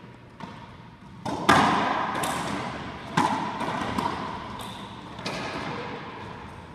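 Racquetball rally: the ball smacked by racquets and rebounding off the walls and floor of an enclosed court, a string of sharp hits that echo, the loudest a little over a second in.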